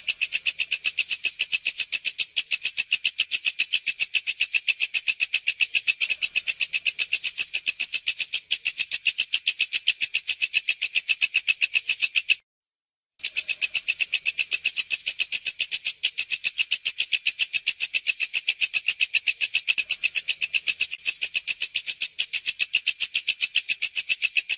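Walang kecek, a bush cricket (katydid), calling in a fast, even run of shrill raspy chirps. The call breaks off for under a second about halfway through, then carries on the same.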